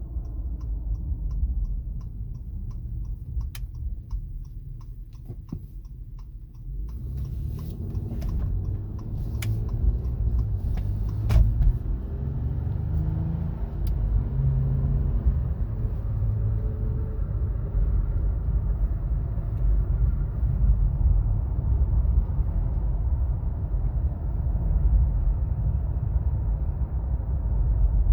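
2017 Acura MDX heard from inside the cabin: a steady fast ticking for the first six seconds or so, then the SUV pulls away, with tones rising as it gathers speed before it settles into a steady road rumble. Underneath is the whine that rises with road speed, which the owner suspects comes from the front passenger side.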